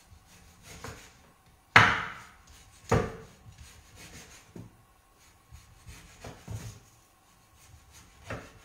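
Knife cutting a piece of guanciale on a wooden cutting board: two sharp knocks on the board about two and three seconds in, then softer scattered knocks and scraping.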